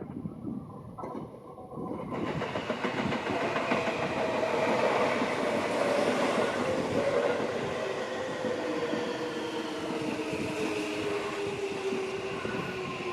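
Seibu 6000-series electric train running past close by. Its sound rises sharply about two seconds in, with wheel clatter and a motor whine that slowly falls in pitch.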